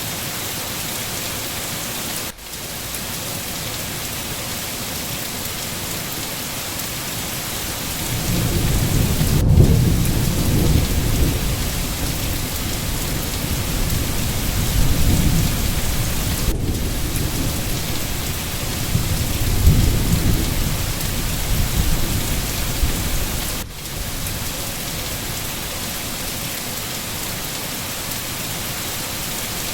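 Steady rain falling in an even hiss. A long low rumble of thunder rolls in about eight seconds in, swells twice, and dies away about three quarters of the way through.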